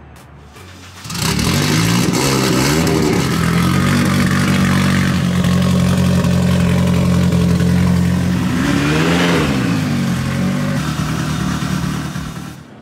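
Turbocharged K20 engine of a rear-wheel-drive Honda Civic EK hatchback starting about a second in and running steadily, with one quick rev past two-thirds of the way through. It cuts off near the end.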